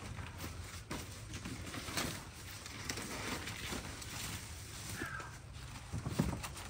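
Scattered knocks and rustling of dry brush and old boards being moved and stepped through, with a louder thump about six seconds in.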